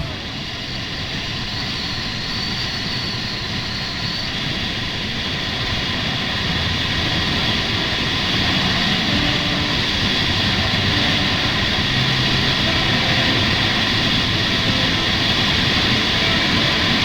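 Kawasaki Ninja 650 parallel-twin motorcycle on the move, heard as a steady rush of wind noise over the engine. It grows gradually louder over the stretch.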